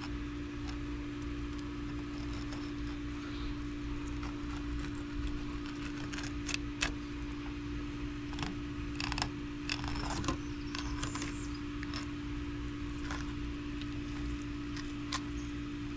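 Scattered small clicks, taps and scrapes of a fillet knife working along a flounder's bones, over a steady low hum.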